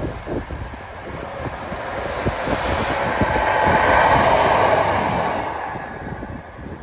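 Transport for Wales diesel multiple-unit train passing at speed, growing to its loudest about four seconds in and then fading away. Gusty wind buffets the microphone throughout.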